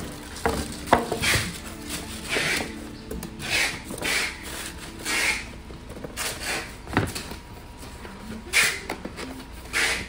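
Plastic bag rustling and cardboard scraping as a boxed item is handled and slid into a cardboard shipping carton. There are repeated short swishes and a few knocks of box against box, the loudest about a second in and at about seven seconds.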